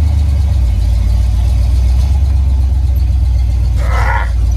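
Classic Ford pickup's engine running while driving, a steady low drone heard from inside the cab. A brief higher-pitched sound comes about four seconds in.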